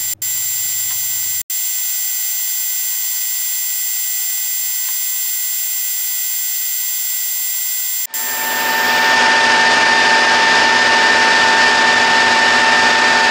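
1982 Colchester 1800 manual lathe running steadily with a whine of several fixed tones while a tool turns down a tellurium copper spigot. The sound drops out for an instant three times, and after the last break, about eight seconds in, it runs louder and fuller.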